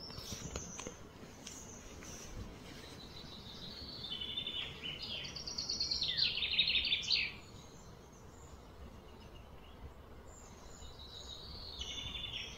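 A songbird singing rapid trilled phrases that step up in pitch and end in a falling sweep, loudest from about four to seven seconds in, with a shorter trilled phrase near the end.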